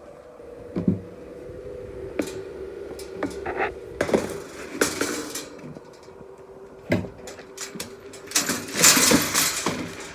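Horse feed being handled in scoops and feed pans: clattering knocks and two longer rushing pours of grain, one about four seconds in and one near the end. A faint steady hum runs underneath.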